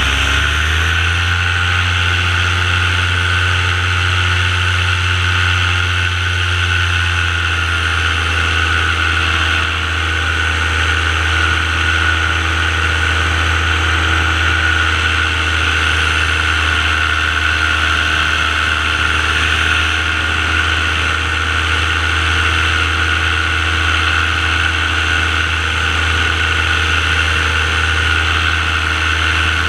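Paramotor engine and propeller running steadily in flight, with a strong low drone and a steady rushing hiss. Its pitch climbs over the first several seconds, then holds steady.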